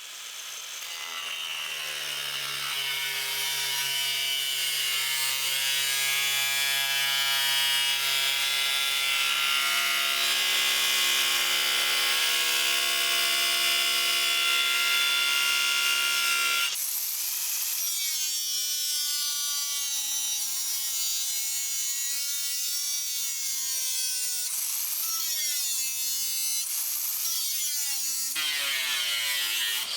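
Electric angle grinder running continuously, working the underside of the Beetle's floor pan to strip off undercoating. It winds up at the start, changes tone about halfway through, and dips in pitch several times near the end as it is pressed into the metal.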